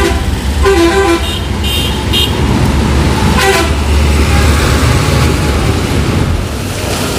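Street traffic: a steady low engine rumble from trucks and other vehicles, with several short horn toots about a second in, around two seconds and again near the middle.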